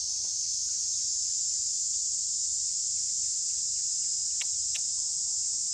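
A steady, high-pitched drone of insects that runs on unbroken, with two short sharp clicks in quick succession about four and a half seconds in.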